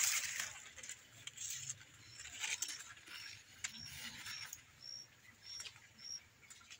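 Corn leaves rustling as they are pushed aside, fading out within the first second, with scattered light clicks. Then a bird's short, high chirps repeat about twice a second.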